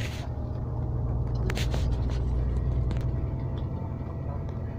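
Bus engine and road rumble heard from inside the moving bus: a steady low drone that swells slightly about halfway through.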